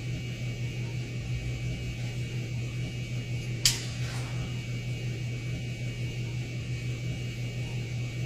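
Steady low hum with an even hiss, the background noise of an airliner cabin or lavatory. A single sharp click sounds a little over three and a half seconds in.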